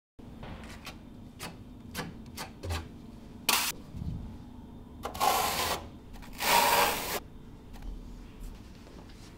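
Steel trowel scraping and spreading mortar over a screed slab: several short scrapes and taps, then two longer, louder scraping strokes past the middle. A faint steady hum runs underneath.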